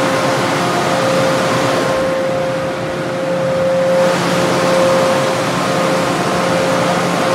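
PDQ car wash dryers blowing: a steady rush of air with a constant mid-pitched whine from the blowers. The hiss dulls for a couple of seconds in the middle, then comes back.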